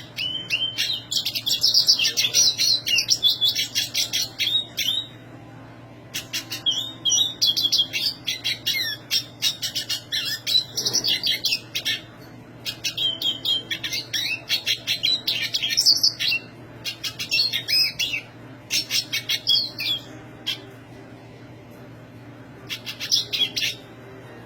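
Black siskin singing in full voice: long, rapid, high-pitched twittering phrases broken by short pauses, the last one brief near the end. A steady low hum runs underneath.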